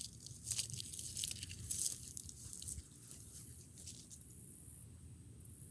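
Dry fallen leaves and grass crunching and rustling in irregular bursts, as leaves are stepped on and handled, fading after about three seconds.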